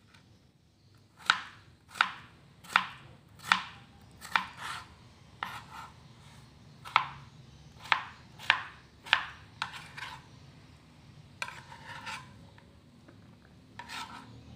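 Knife chopping a raw potato into small cubes on a plastic cutting board: a run of single sharp knocks, a little under a second apart, after a quiet first second. Near the end come a few softer, longer scraping sounds.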